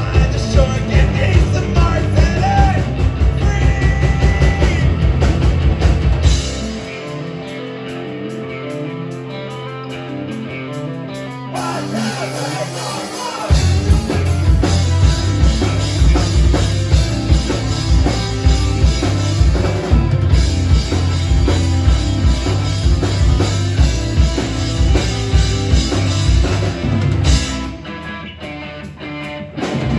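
Rock band playing live: drums, guitar and bass at full volume. About six seconds in the drums drop out to a quieter stretch of held bass notes, the full band comes back in a few seconds before the middle, and there is another brief drop just before the end.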